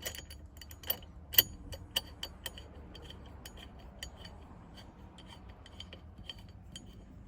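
Metal clinks and light ticks of the steering-wheel hub nut being fitted and threaded on by hand. The sharpest clinks come in the first two and a half seconds, then lighter ticks follow.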